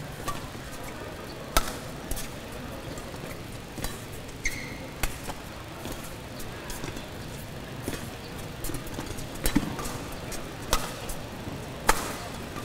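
Badminton rally: sharp, irregular cracks of rackets striking the shuttlecock, one every second or two, over a steady background noise. A short high squeal about four and a half seconds in, like a court shoe squeaking.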